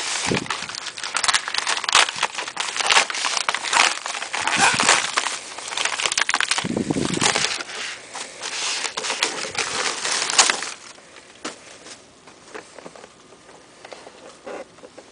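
Plastic packaging crinkling and crackling as it is pulled open and handled, with many sharp crackles. It stops about two-thirds of the way through, leaving only a few light taps as the box is handled.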